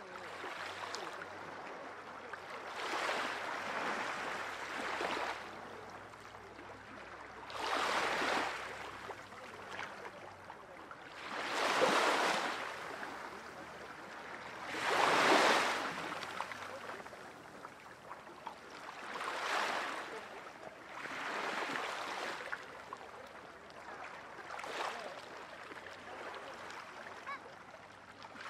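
Small sea waves washing in on a shallow tidal shore, each wash swelling and fading every three to four seconds, with the strongest ones around the middle.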